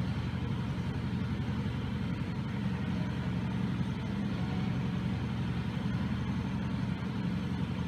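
A steady low hum or rumble of background machinery.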